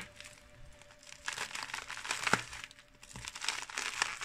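Bubble wrap crinkling and crackling as a small parcel is handled, near quiet for about the first second, then rustling with a few sharp clicks. Scissors cut into the wrap near the end.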